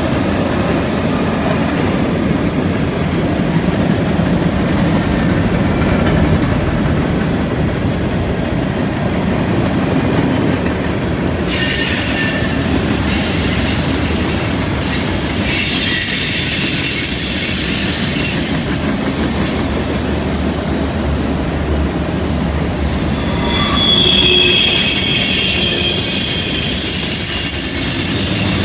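Freight cars rolling past on a curve: a steady rumble of steel wheels on rail, with high-pitched wheel squeal coming in about twelve seconds in and again louder near the end.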